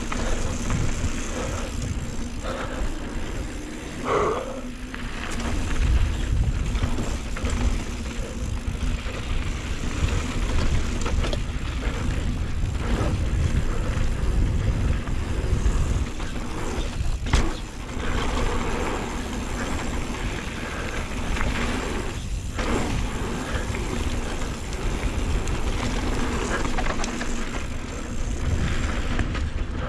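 A Scott Ransom full-suspension mountain bike descending a dirt downhill trail: continuous tyre roar and frame and drivetrain rattle, with heavy wind rumble on a chin-mounted action camera. A few knocks from bumps and landings, the sharpest about 17 seconds in.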